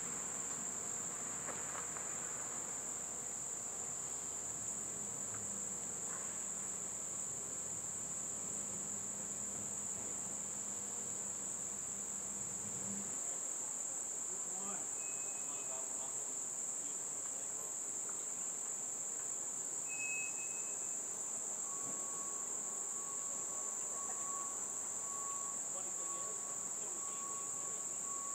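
Steady, high-pitched chorus of singing insects: an unbroken shrill drone that holds the same pitch throughout.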